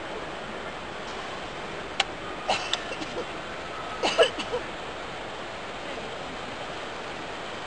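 Steady background hubbub of a crowd in a large hall, with one sharp click about two seconds in and short bursts of clattering about two and a half and four seconds in.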